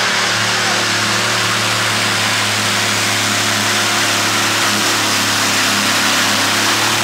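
Competition pulling tractor's engine running steadily, a constant drone over an even, loud hiss with no rise in revs.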